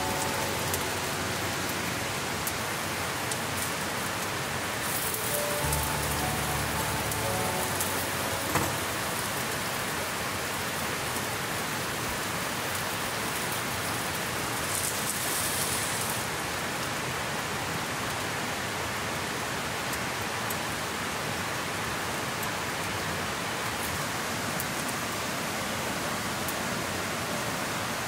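Steady rain falling: an even hiss with scattered drop clicks. A few soft music notes trail off in the first several seconds.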